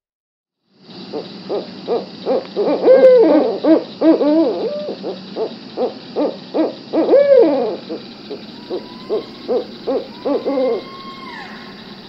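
Owls hooting at night: a long series of short calls that rise and fall in pitch, several overlapping at times over a steady background hiss. The calls start about a second in and thin out near the end.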